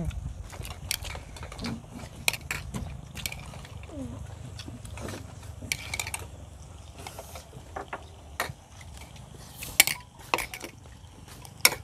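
Chopsticks and dishes clicking and clinking as food is picked from plates and a tabletop grill pan: scattered short sharp clicks, two louder ones near the end, over a steady low hum.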